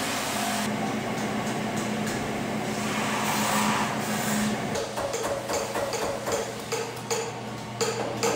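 A steady hiss for the first half, then metal hammer blows at about three a second, each with a short ring, as sheet copper is shaped on a steel stake.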